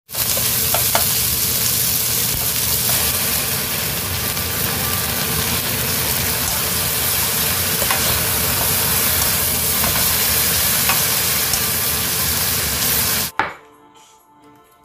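Water spinach with garlic and red chili sizzling in a hot pan as it is stir-fried with a wooden spatula, with a few light clicks of the spatula against the pan. The sizzle cuts off suddenly near the end.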